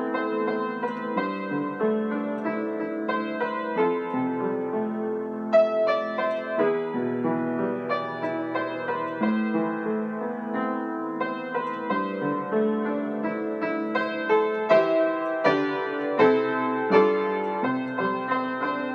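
Upright piano played solo: a melody over sustained chords in the left hand, with several louder accented chords in the second half.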